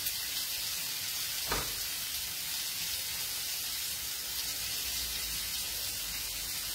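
Oil sizzling steadily in a frying pan on a gas hob, with one light knock about a second and a half in.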